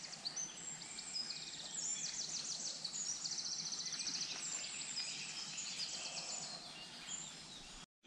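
Woodland songbirds singing, several high-pitched songs overlapping, with a fast trill about two to three seconds in, over a faint even background hiss. The sound cuts off suddenly just before the end.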